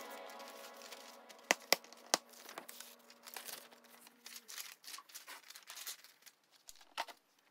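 Faint rustling and crinkling of paper pages being turned and lifted in a Five Star Flex ring binder. A few sharp clicks come about one and a half to two seconds in and another near the end, fitting the binder's rings snapping open and shut.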